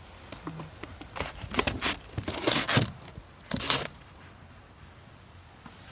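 Handling noises: a few rustling, scraping bursts as the frosted lid of a leather watch box is lifted open, the longest about two seconds in.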